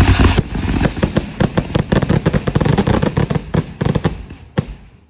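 Fireworks going off in a rapid barrage, many sharp bangs and crackles a second, thinning out and fading near the end.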